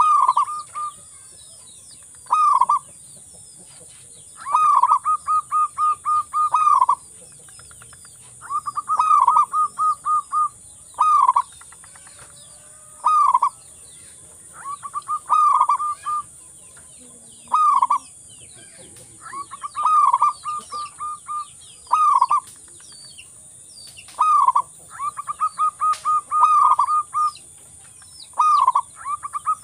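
Zebra dove (local perkutut) singing its cooing song: loud phrases of quick, evenly repeated staccato coos, some brief and some running about two seconds, coming again every couple of seconds. Faint chirps of small birds sound behind it.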